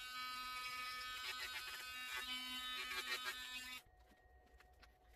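Handheld rotary tool with a small sanding drum running, its motor whining as it sands a carved wooden lure body; it stops abruptly almost four seconds in.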